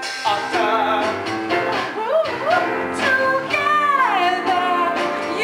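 Musical-theatre number: voices singing over instrumental accompaniment, with a long downward slide in pitch a little past the middle.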